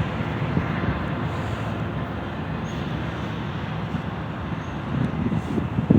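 Steady, slowly fading noise of passing vehicles, with gusts of wind buffeting the microphone near the end.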